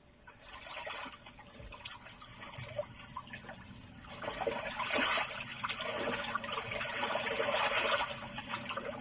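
Water splashing and trickling, a crackly rush that builds up and grows louder over several seconds.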